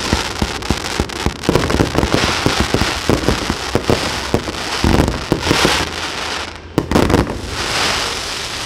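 Fireworks display: a rapid, dense crackle of small bangs and crackling stars, with heavier shell bursts booming about five and seven seconds in.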